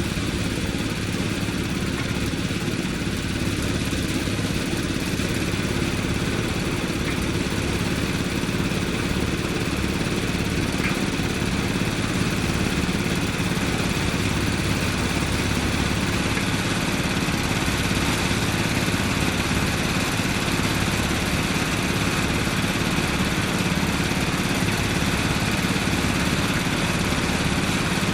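An engine idling steadily, an even low drone that holds the same speed throughout.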